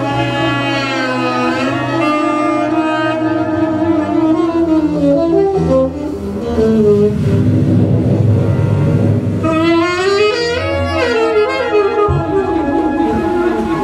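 Large jazz ensemble with saxophones and brass playing free, contemporary big-band music. Saxophone lines slide and bend up and down in pitch over sustained low horn and bass notes, with a second flurry of gliding notes about two-thirds of the way through.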